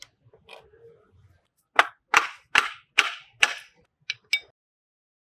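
A series of sharp strikes: five loud ones in quick, even succession, about two or three a second, each trailing off briefly, then two lighter ones just after.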